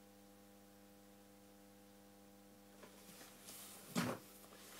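Faint, steady electrical mains hum with several even tones. From about three seconds in come faint clicks and rustles, and a short louder thump about four seconds in.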